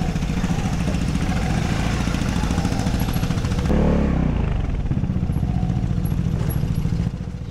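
Vespa GTV 300 scooter engine running steadily, briefly louder about four seconds in.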